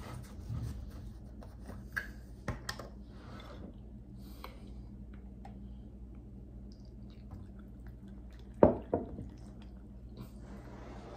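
Plastic gallon milk jug being uncapped with a few small clicks, then tipped so whole milk pours into a glass bowl of cereal. One sharp knock a little over two-thirds of the way through is the loudest sound.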